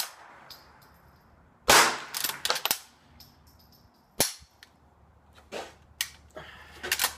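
A Henry Classic lever-action rifle firing a .22 long rifle round once, with a long ringing tail, followed by a quick run of metallic clicks as the lever is cycled. About two and a half seconds later comes a shorter, sharper crack, then more metallic clicks as the lever is worked again near the end.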